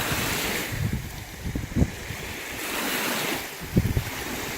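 Gusty wind blowing across the microphone over lake waves washing in, the noise swelling and easing twice, with two brief low thumps of wind buffeting the mic.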